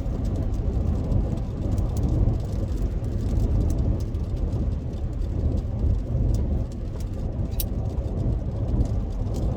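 Steady low road and engine rumble heard from inside a moving car's cabin, with a few faint clicks.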